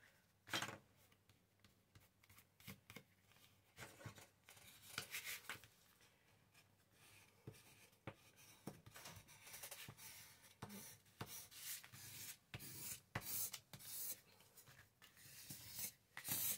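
Faint, irregular rustling and scraping of paper being handled and rubbed.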